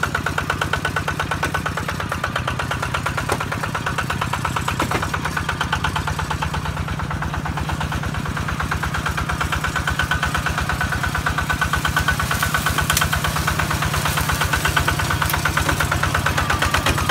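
Small tracked rice combine harvester's engine running steadily with an even, fast pulsing beat, growing a little louder in the second half.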